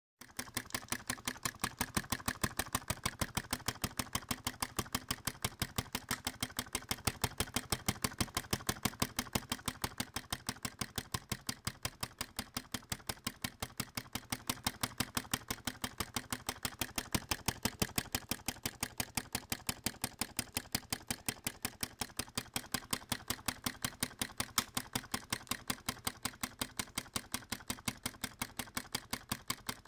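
Flame-gulper vacuum engine running steadily, its mechanism clicking in a fast, even rhythm, several clicks a second.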